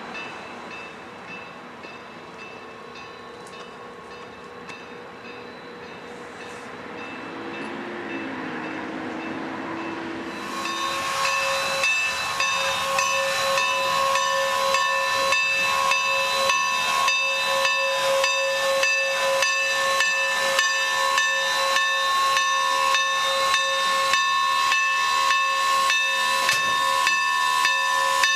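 Steam locomotive No. 475, a Norfolk & Western 4-8-0, standing with steam blowing off. About ten seconds in, a loud, steady hiss with a held tone starts suddenly, under an even beat of about two or three strokes a second.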